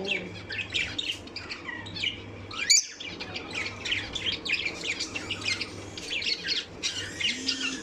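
Pet lovebirds, Fischer's lovebirds among them, chirping in quick, overlapping short calls. There is one sharp click about three seconds in.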